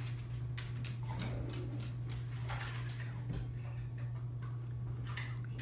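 Quiet room tone: a steady low hum with scattered faint, irregular clicks and taps.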